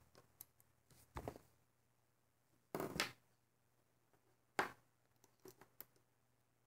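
Handling noise from a plastic rubber-band loom and its bands on a wooden table: a few short rustles and clacks, the loudest about three seconds in, with small clicks near the end.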